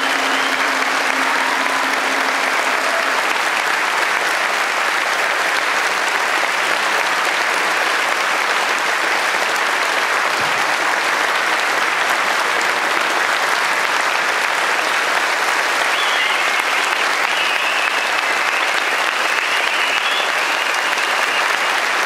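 Large audience applauding steadily without a break.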